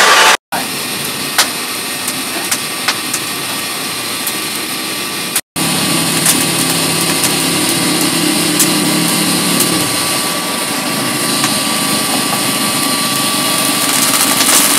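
Abrasive cut-off saw cutting steel for a moment at the very start, then the steady running hum of a coal forge's air blower, with scattered small crackles and pops from the burning coal.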